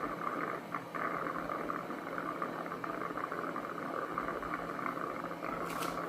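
Cuckoo robot vacuum station's mop-washing cycle running: a steady whirring, rushing noise over a low motor hum.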